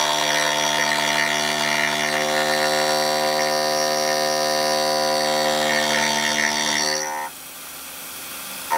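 Single-insert 12 mm indexable endmill at 4600 RPM rough-milling St37 steel: a loud, steady pitched buzz of the cut. It drops away about seven seconds in and starts again right at the end.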